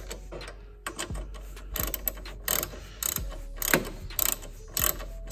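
Socket ratchet clicking as a nut is tightened by hand, in short repeated bursts about two a second.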